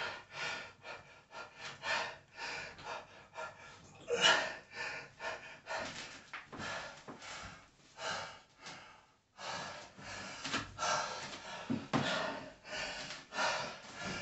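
A man breathing hard and gasping, with quick, noisy, irregular breaths, winded from a heavy set of dumbbell rows; the breathing stops briefly about nine seconds in.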